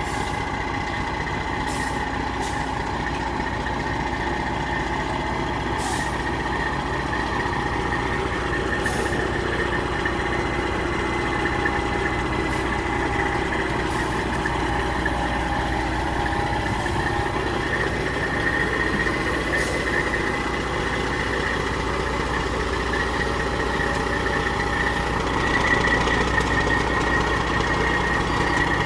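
Large truck's engine running steadily, with a few faint clicks over it.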